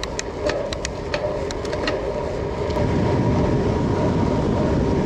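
Gravel bike speeding up on a descent: wind and tyre rumble build and get louder about halfway through, then hold steady. Light irregular clicks come in the first two seconds.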